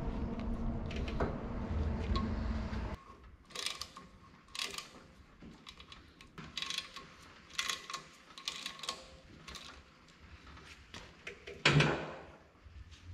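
A ratchet wrench clicking and steel tools clinking as the tooth bolts on a Rayco RG50 stump grinder's cutter wheel are worked, with one loud metal clank near the end. A steady low hum for the first three seconds cuts off suddenly.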